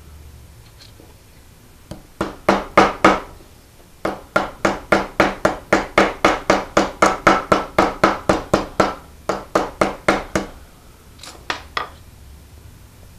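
Hammer striking a 1/8-inch metal rod laid along a copper leaf on a grooved wooden 2x4, pressing the centre vein into the annealed copper. A few blows, a brief pause, then a steady run of about four blows a second for some six seconds, and two last blows near the end.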